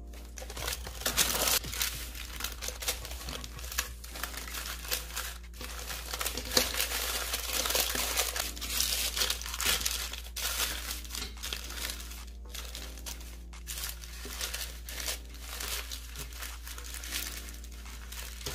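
Parchment paper crinkling and rustling as it is rolled and folded around a log of dough, loudest in the first half; after that, softer rustling as a cloth is folded around the paper-wrapped roll.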